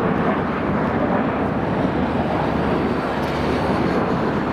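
Airliner jet engines on the airfield: a loud, steady rushing noise with no clear whine or change.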